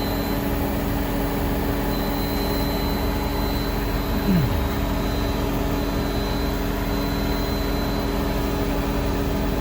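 High-pitched whine from the centre of the left fuel tank of a MINI Cooper R56 non-S, steady but dropping out briefly a few times, over a steady low hum. It appeared after the charcoal canister was replaced, and the owner suspects an electrical fault. A short falling tone sounds about four seconds in.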